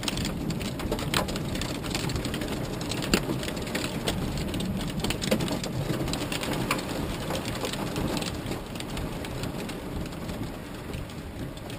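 Heavy rain beating on the roof and windshield of a Honda Odyssey minivan, heard from inside the cabin as a steady dense patter. Scattered sharp hits stand out through it, the strongest about three seconds in.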